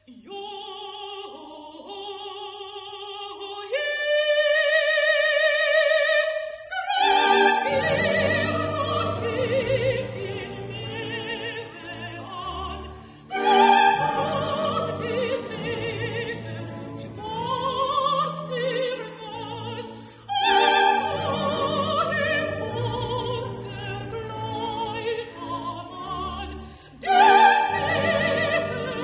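Dramatic soprano singing an opera aria with full orchestra. A wavering sung line and a long held high note fill the first seven seconds; then the orchestra comes in loudly and swells several more times.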